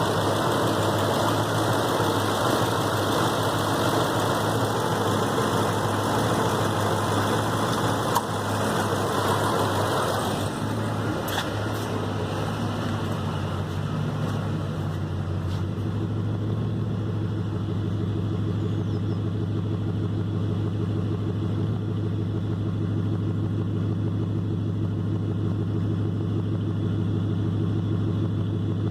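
Triton engine running with a misfire. It runs with more high-pitched sound for the first ten seconds or so, then settles to a steady idle from about fifteen seconds in.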